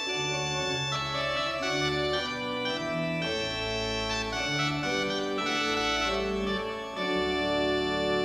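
Organ playing held chords over a bass line that steps to a new note about once a second; a fuller chord comes in about seven seconds in.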